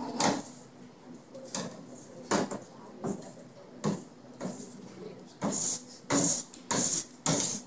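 Metal bench scraper chopping and scraping pie dough against a stainless steel worktable as water is worked into the flour and shortening. Short scrape-taps come a little under once a second, then the last two seconds or so bring four longer, louder scraping strokes.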